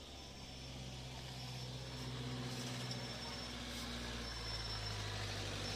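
Farm tractor's diesel engine running as it comes along the road, a steady low drone that grows gradually louder.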